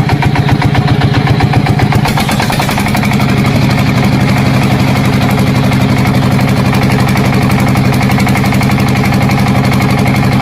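Engine idling with a fast, even putter. About two and a half seconds in it settles into a steadier, smoother run.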